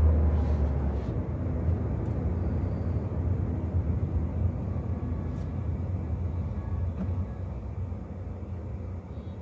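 Tata Bolt hatchback's engine and road noise heard from inside the cabin, a steady low rumble that gradually fades as the car slows in traffic.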